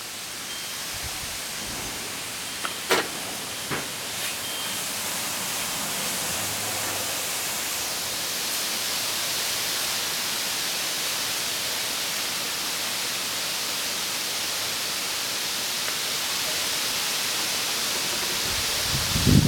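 Wind rustling through the leaves of the trees, a steady hiss that builds a little over the first few seconds. Two brief clicks stand out about three and four seconds in.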